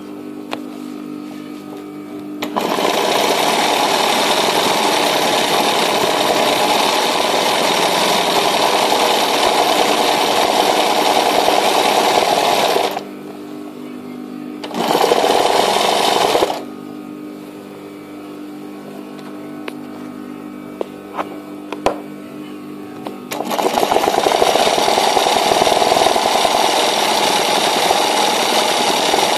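Sewing machine stitching hoop-guided free-motion embroidery, running in spells. It starts a couple of seconds in and runs for about ten seconds, stops, gives a short burst, pauses for several seconds, then starts again near the end. In the pauses a steady motor hum and a few light clicks remain.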